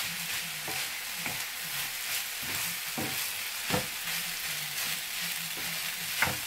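Rice being stir-fried in a non-stick frying pan: a steady sizzle, broken by scrapes and knocks of the spatula against the pan. The loudest knock comes a little before four seconds in.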